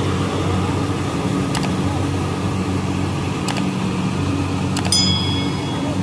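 Kubota DC70 combine harvester's diesel engine running steadily under load while it cuts and threshes rice. There are a few faint clicks, and a short bright ding about five seconds in.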